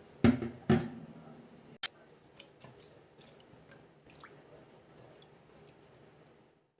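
Two heavy knocks about half a second apart, then a sharp click and a few light clicks of things being handled and set down in a kitchen.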